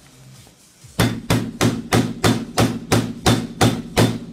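Hammer beating on a smartphone screen covered with a protective film, about ten quick sharp blows at roughly three a second, starting about a second in, each with a short ring.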